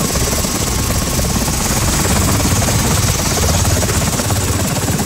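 Low-flying UH-60 Black Hawk military helicopters passing, the rotors chopping rapidly and steadily.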